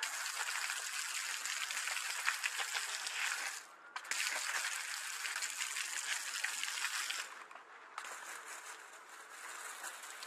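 Garden hose spraying water, a steady hiss that breaks off briefly just under four seconds in and turns much quieter after about seven seconds.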